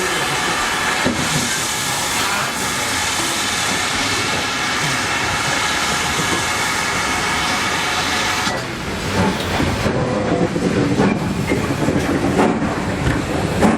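GWR Manor Class steam locomotive letting off a steady hiss of steam, which cuts off suddenly about two-thirds of the way through. The rattle and clatter of the train's carriages follow.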